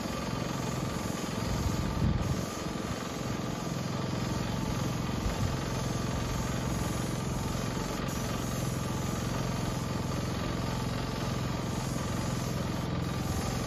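Small engine running steadily at an even speed, driving the sprayer that feeds the man's hose as he coats the fence with thinned used motor oil.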